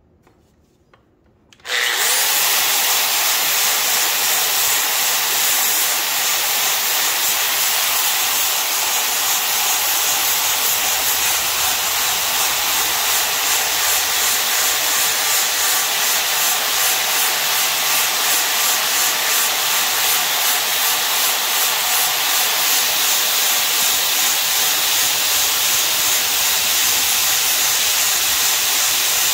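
Sandblast cabinet running: a loud, steady hiss of air and abrasive blasting that starts suddenly about two seconds in, with a slight even pulsing.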